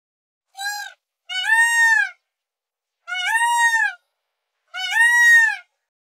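A peacock calling four times: loud, wailing, cat-like calls that rise and fall in pitch. The first call is short, and the next three are longer and come about a second and a half apart.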